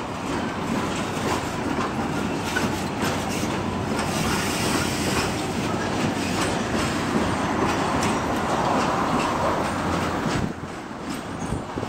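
Scrap-laden open freight wagons rolling slowly past on jointed track, wheels clacking over the rail joints with a steady rumble and clatter. The noise eases a little about ten seconds in.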